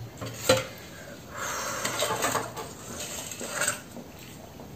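A steel spoon clinking against steel dishes while sour lentil dal is served over rice. There is a sharp clink about half a second in, then a softer scraping stretch, and another clink as the spoon goes back into the bowl near the end.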